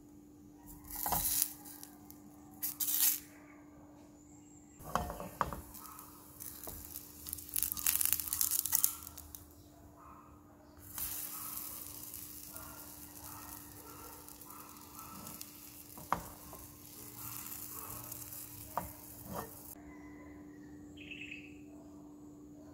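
Pancake batter frying in a hot nonstick pan: loud bursts of sizzling in the first half, with scrapes and taps as a spatula presses and turns the pancake, then a steady sizzle. A steady low hum runs underneath, and the sizzle stops near the end.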